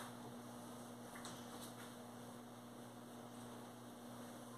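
Quiet, steady electrical hum, with a few faint short ticks about a second in, likely from a dry cloth being wiped over mirror glass.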